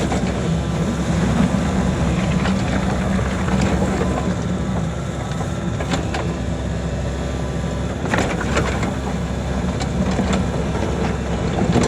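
Kobelco SK85 excavator's diesel engine running steadily under load while digging, with a few sharp knocks from the bucket working the ground.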